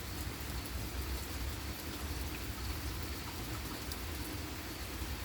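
Steady rain falling, with a few scattered drips ticking.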